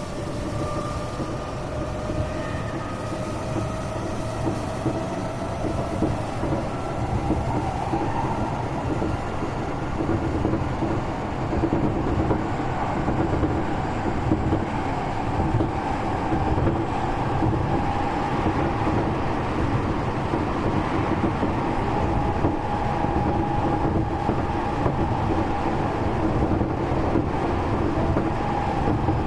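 Onboard running sound of a Tokyo Metro 8000 series train: the traction motor whine rises in pitch over the first ten seconds or so as the train picks up speed, then holds steady, over a constant rumble of wheels on rail.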